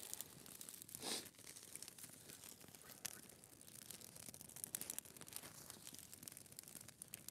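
Dry twig fire crackling faintly, with scattered small pops, and a brief louder rustle of twigs about a second in.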